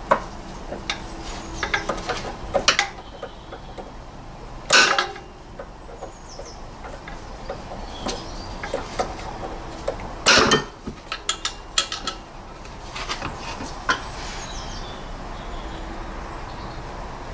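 Flat-blade screwdriver clicking, tapping and scraping against the plastic connector and red locking clip of a PT Cruiser's front ABS wheel speed sensor wiring, prying to release it. There are two louder scraping knocks about 5 and 10 seconds in.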